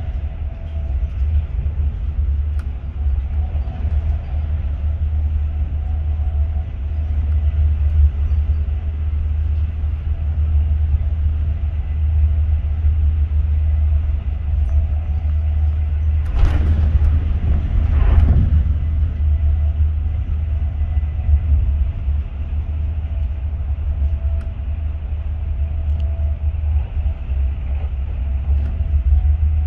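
Class 43 HST (Intercity 125) train running: a steady low rumble of wheels on track, with a faint steady tone above it. Two short, louder rushes of noise come about 16 and 18 seconds in.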